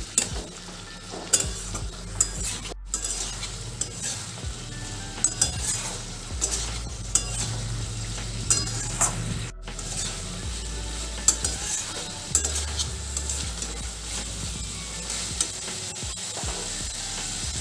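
Flat bean and potato curry sizzling in a kadai over a high flame, with a little water just added, while a spatula stirs it, giving scattered clicks and scrapes against the pan.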